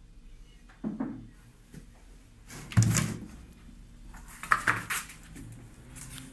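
Knocks and clatter of household objects being bumped or moved, in three short bouts, the loudest about three seconds in.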